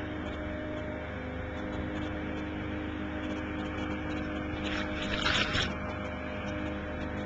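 Boat engine running with a steady drone and constant hum. About five seconds in, a brief hissing noise rises over it for under a second.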